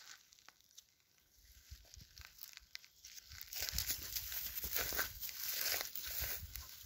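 Crackling, crunching rustle of dry grass and brush underfoot, starting about halfway through after a quiet first half.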